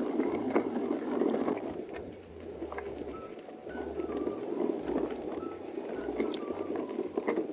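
Hardtail mountain e-bike being ridden: steady tyre and ride noise with scattered rattles and knocks, and wind buffeting the microphone.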